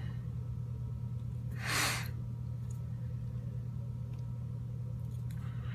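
A steady low hum, with a short breathy rush of noise about two seconds in and a few faint ticks after it.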